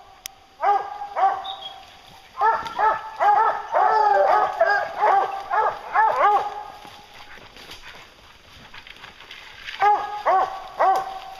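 A pack of English hounds baying at a black bear they have treed. Their barks come in groups: a couple at first, then a long run of overlapping barks from several dogs, a lull, and a few more near the end.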